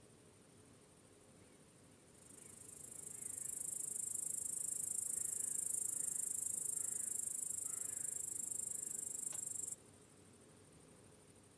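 Crickets chirping in a high, fast-pulsing trill. It fades in about two seconds in and cuts off abruptly about two seconds before the end.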